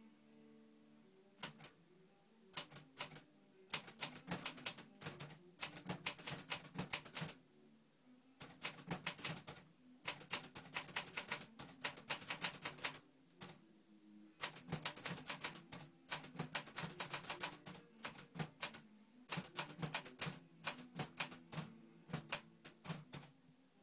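Hangul (Korean) typewriter being typed on: keys strike in quick runs of sharp clicks, in several bursts of a few seconds each with short pauses between them.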